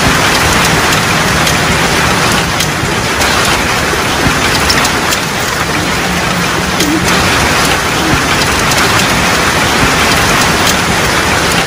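Heavy rain pouring down onto pavement, a steady dense hiss of splashing drops.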